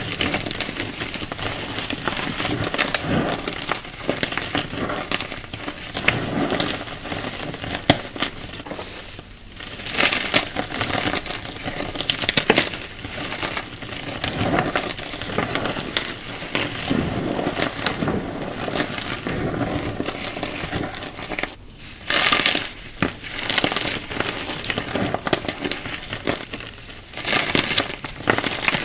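Hands squeezing and crushing soft, dry chunks of coloured chalk into powder: a continuous crumbling, crackling sizzle, with brief lulls about a third of the way through and again about three-quarters of the way through.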